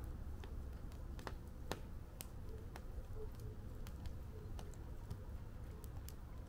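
Fire in a fire pit crackling, with sharp, irregular pops over a low steady rumble.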